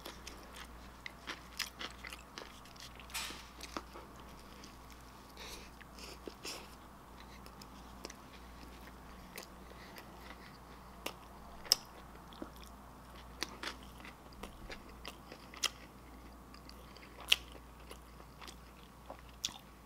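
Close-miked chewing of a soft-bun sloppy joe sandwich with ground-beef filling: wet mouth clicks and smacks come irregularly, with a few sharper louder ones.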